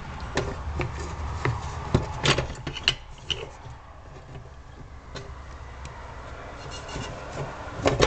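Hands rummaging through a box of assorted lathe parts and odds and ends: irregular clicks, clinks and knocks of items being moved and picked out, busiest in the first few seconds, with a sharp knock near the end.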